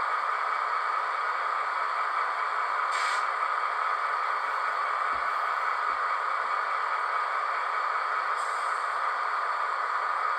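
Diesel locomotive sound from the small onboard speaker of an HO-scale DCC sound model of a V/Line N class, running steadily and thin, with no deep bass. A short hiss comes about three seconds in and a fainter, higher one near the end.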